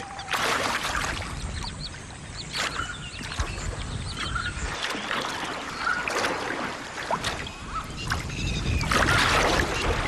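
Shallow water splashing and churning as a crowd of mugger crocodiles feeds on fish, lunging and snapping at them. The splashes come irregularly, the loudest about half a second in and again near the end.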